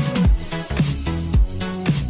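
Background music with a steady beat: a kick drum about twice a second over a sustained bass line.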